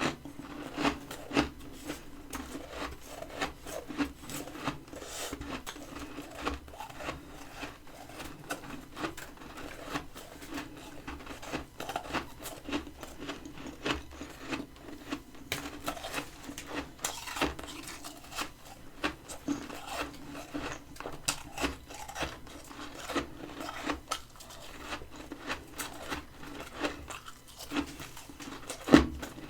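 Close-up mouth sounds of biting and chewing freezer frost: many small, irregular crunches.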